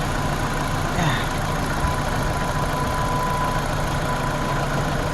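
2014 Dodge Journey's four-cylinder engine idling roughly with a misfire, which the owner traces to cylinder number 1.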